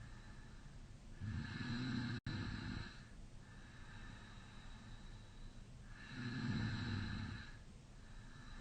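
A man snoring in deep sleep with his mouth slightly open: two long snores about five seconds apart, with quieter breathing between them.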